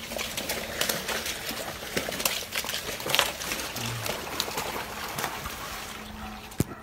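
A crowd of young crocodiles jostling over thrown chunks of meat on a wet floor: irregular sharp clacks and knocks of jaws and scaly bodies, with wet scraping and splashing.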